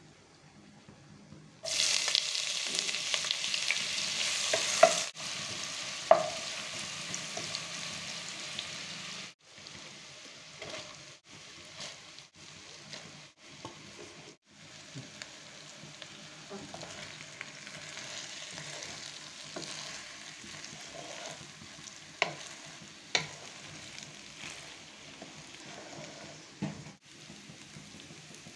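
Hot fat sizzling in a cooking pot with whole spices, starting suddenly and loud about two seconds in, then settling to a quieter frying sizzle as soaked basmati rice is added and stirred, with a couple of sharp utensil knocks in the second half.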